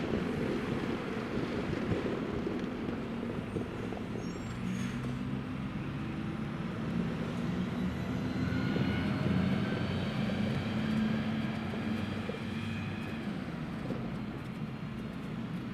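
Diesel train engine running, revving up from about eight seconds in, with a whine rising in pitch above it.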